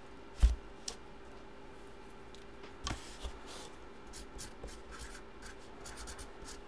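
A felt-tip marker writing on the end of a cardboard box: a run of short scratchy strokes in the second half. Before that comes a single thump about half a second in.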